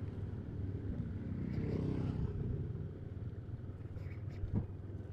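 Motorcycle engine running on the move, its pitch rising and falling briefly about two seconds in, with a sharp knock near the end.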